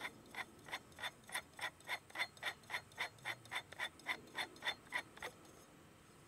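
FX Wildcat MK2 air rifle's silencer shroud being screwed onto its threads, ticking about four times a second in time with the turning. The ticking stops about five seconds in as the shroud seats snug against the frame.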